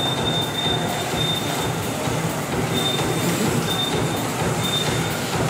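Kyosho Mini-Z electric RC cars racing on the track: a dense, steady whir of small motors, gears and tyres. A short, steady high tone sounds about five times over it.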